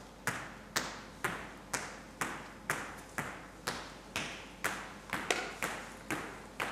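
Sharp percussive taps in a steady beat, about two a second, each ringing briefly in a large reverberant room.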